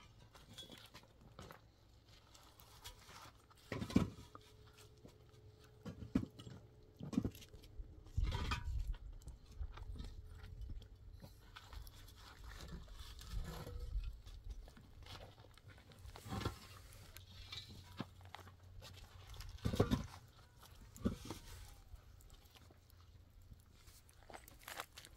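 Scattered knocks, thumps and scrapes of hand block-laying work on a concrete-block wall, with the two loudest knocks about 4 seconds in and near 20 seconds.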